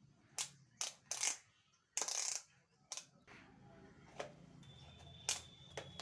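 Handling sounds from a new multimeter and its packaging: a string of sharp clicks and knocks with a brief rustle about two seconds in. A faint steady high tone comes in a little past halfway.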